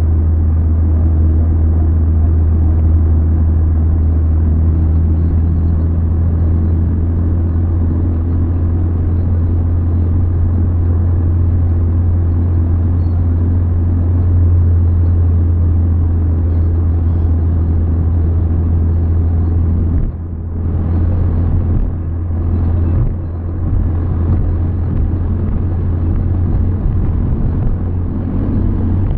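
Steady low drone of a car's engine and tyres heard from inside the cabin while cruising along a highway, dipping briefly twice about two-thirds of the way through.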